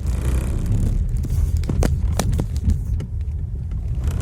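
Steady low hum and rumble inside the cabin of a moving Geely SK3, with a few sharp knocks and rattles from bumps about halfway through. The owner takes the hum for a sagged engine mount letting the engine touch the body.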